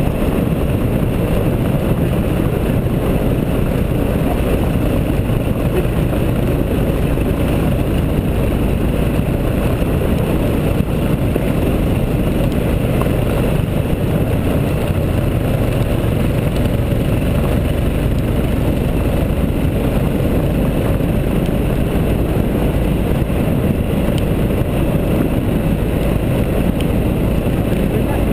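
Motorcycle riding at a steady pace on a gravel road, heard from a camera mounted on the bike: engine, tyres on loose gravel and wind blend into one steady, loud rumble.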